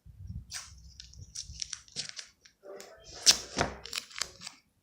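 Sticky tape crackling and crinkling in short bursts as it is pulled and pressed around a bundle of paper-wrapped jumping jack fireworks. The loudest crackle comes a little past three seconds in.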